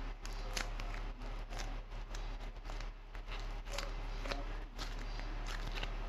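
Crumbly clay crushed between fingers close to the microphone: irregular sharp crackling crunches, about three a second, over a steady low hum.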